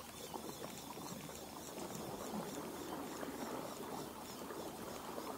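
Sea water lapping and splashing lightly: a steady, dense patter of small splashes.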